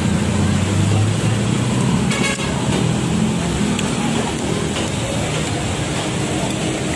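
Street traffic noise: vehicle engines running steadily with a low hum, and a short sharp click a little over two seconds in.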